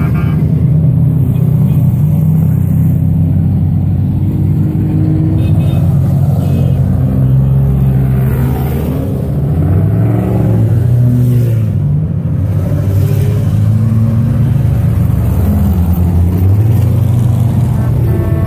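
Engines of several off-road race vehicles running loudly as they drive by, their pitch rising and falling as they rev.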